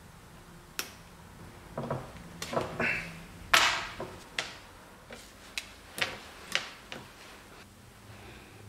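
Pliers and small metal cable terminals handled on a wooden workbench: a string of sharp clicks and knocks, about ten in all. The loudest comes about three and a half seconds in.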